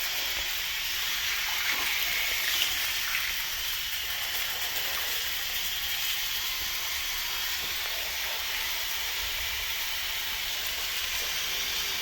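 Water running steadily into a hot-mopped shower pan whose drain is closed with a test cap, filling it for a flood test of the waterproofing. A constant hiss, with a couple of faint ticks a couple of seconds in.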